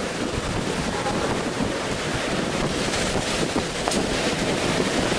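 Hurricane-force wind, about 130 mph, blowing rain, water and debris through a concrete corridor: a steady rush of wind noise buffeting the microphone. It is the back half of a category-four hurricane's eyewall passing after the eye.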